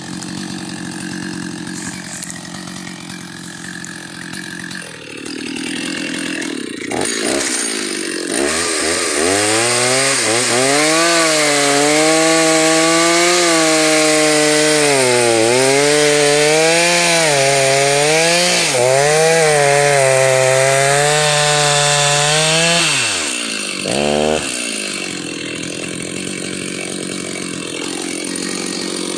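Stihl 029 Super two-stroke chainsaw running at low speed, then revving up about eight seconds in and cutting through a log at full throttle for about fourteen seconds. Its pitch dips and recovers as the chain loads. After a short rev it drops back to a lower steady run near the end. The chain has cutters on one side filed much shorter than the other, yet it is bucking a full-bar-depth cut.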